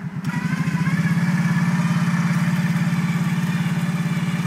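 An ATV's electric winch motor whining as it strains to pull the mud-stuck quad out, over the quad's idling engine. The whine starts about half a second in, rises and then holds steady.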